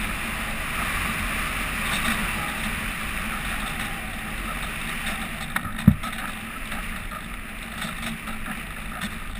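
Airflow rushing over a GoPro camera in its housing, mounted on a low-flying RC glider: a steady wind noise. A single sharp knock sounds about six seconds in.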